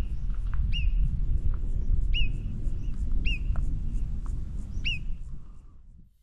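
Alpine marmot giving its alarm call: a string of short high whistles, roughly one a second, over wind rumbling on the microphone. Both fade out near the end.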